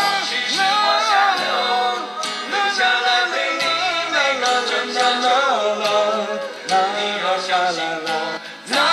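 Karaoke backing track of a Mandarin pop ballad playing an instrumental passage without lyrics, a melody line gliding and wavering over the accompaniment.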